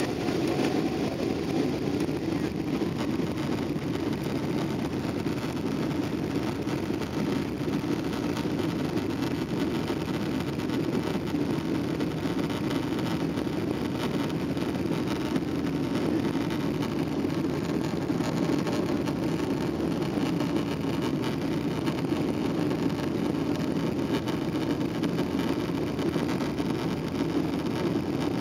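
Steady cabin rumble of a jet airliner taxiing on the ground, its engines running evenly with no rise in thrust.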